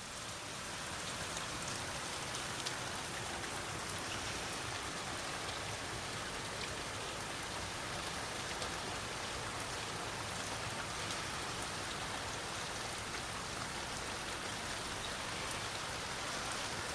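Steady rain falling during a thunderstorm, an even hiss with a few sharp ticks of single drops landing close by.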